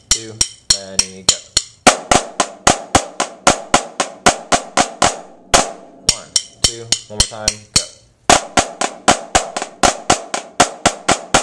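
Snare drum played with sticks: a rhythmic passage of sharp strokes, about three to four a second, broken by quick rolls about half a second in and again around seven seconds in, with a brief pause just after eight seconds.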